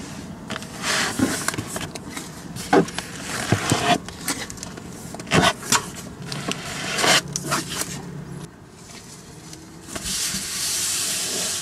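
Magazines scraping and knocking as they are slid and lifted off a shelf, a string of separate handling sounds; from about ten seconds in, a paper towel rubbing over the shelf surface in a steady hiss.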